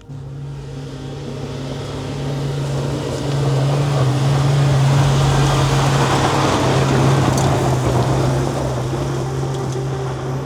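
Rely R8 pickup truck driving, its engine running at a steady pitch under a rush of wind and road noise that swells about midway.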